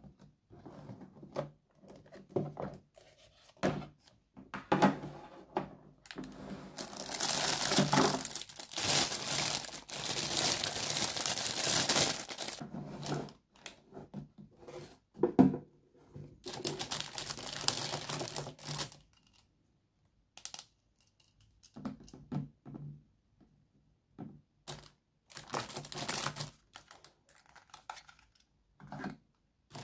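Thin plastic packaging crinkling and rustling as it is handled, in stretches of a few seconds, with light clicks and knocks of a hard plastic toy doctor's case and its pieces between them. The crinkling is the loudest sound.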